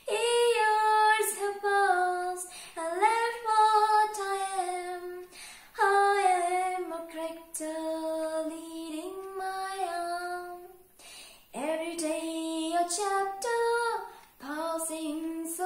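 A woman singing solo and unaccompanied, in long held notes that slide between pitches, with short breaks for breath between phrases.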